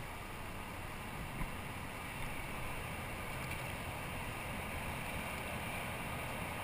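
Steady rushing noise of water and wind around a kayak, with a couple of faint ticks.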